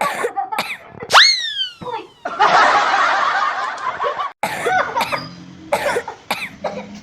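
A person coughing repeatedly in short, harsh bursts, with a loud falling, whistle-like tone about a second in and about two seconds of laughter in the middle before the coughing resumes.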